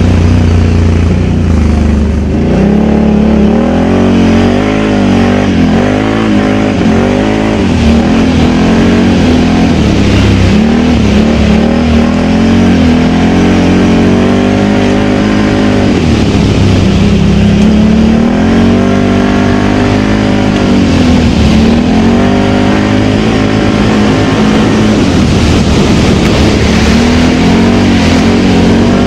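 Can-Am Outlander XMR 1000 ATV's Rotax V-twin engine through dual slip-on exhausts, revving up and dropping back again and again as the throttle is worked while riding.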